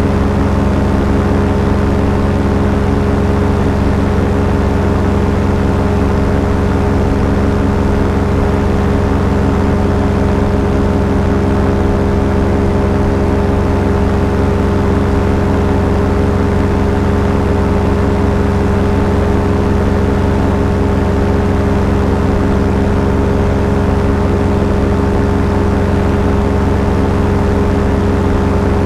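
A small aircraft's engine running steadily in cruise flight, holding one constant pitch throughout, with airflow noise around it.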